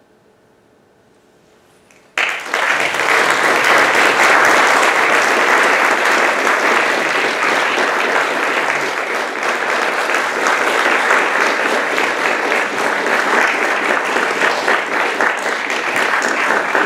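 An audience breaks into applause about two seconds in, after a brief hush, and keeps clapping steadily.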